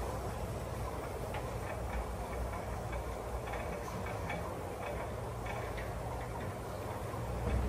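Passenger lift car travelling in its shaft, heard from the car roof: a steady low hum and rush of moving air, with faint, irregular light ticks.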